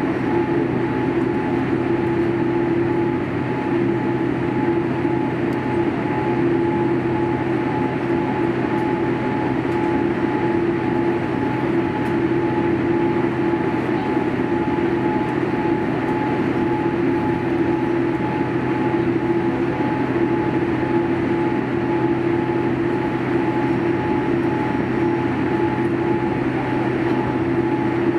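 Steady cabin drone inside a Boeing 787-8 Dreamliner on the ground before takeoff: an even rushing hum carrying two constant tones, one low and one higher.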